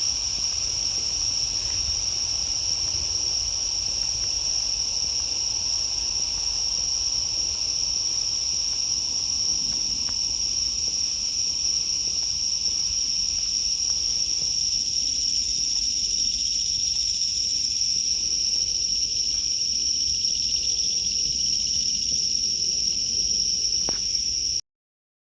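Night insects calling: a steady, unbroken high-pitched trill with fainter pulsing calls above it. It cuts off abruptly near the end.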